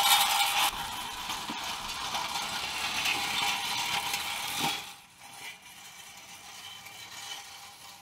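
Wheel-less bicycle's angled tread belts (chains with rubber tread) screeching and rattling against asphalt as it is pedalled, a steady hissy scraping with a faint whine. It eases slightly under a second in and falls much quieter about five seconds in.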